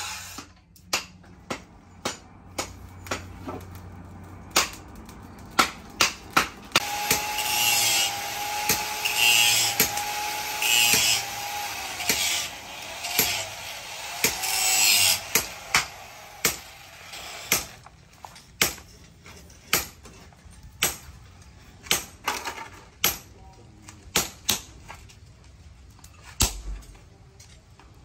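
Metalworking: a series of single sharp strikes, about one a second, as of a hammer on steel, with a stretch in the middle where a tool runs with a steady whine over a rasping noise.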